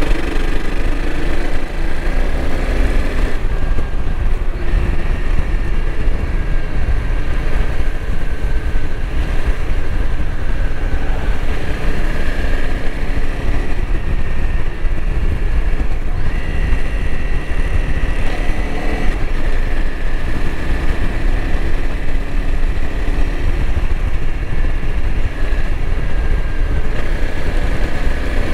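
Honda CRF300L Rally's single-cylinder four-stroke engine running under way, its pitch rising and falling with the throttle. Under it is a constant low rumble of wind on the microphone.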